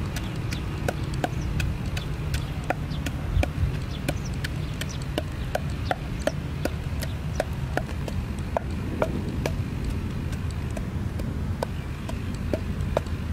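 Wooden pestle pounding in a wooden mortar: a steady rhythm of dull knocks, about three a second.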